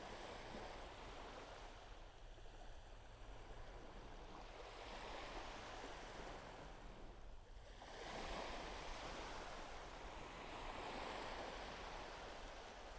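Surf washing onto a beach: a soft hiss of waves that swells and falls back every few seconds.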